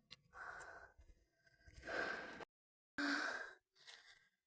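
A person breathing heavily, with four audible breaths in and out, each under a second long, from tiredness. The sound drops out completely for about half a second midway.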